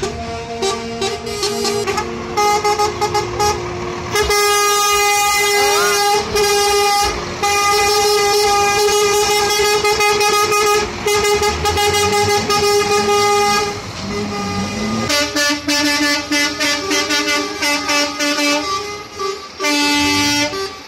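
Truck air horns blown in a series of long blasts as heavy trucks pass, each blast a chord of several tones, changing from one blast to the next, with a short rising glide about six seconds in.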